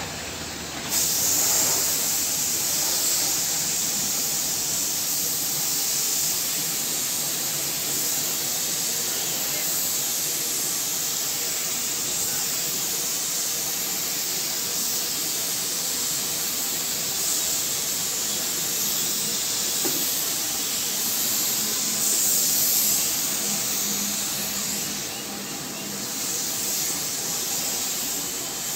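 Compressed-air hiss of a gravity-feed spray gun spraying white primer, starting about a second in and running steadily, with small swells as the trigger is worked.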